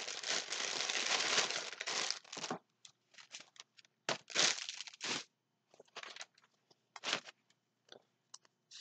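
Plastic packaging crinkling as a clear plastic bag is pulled out of a plastic mailer bag and handled: a continuous rustle for about two and a half seconds, then short separate crinkles.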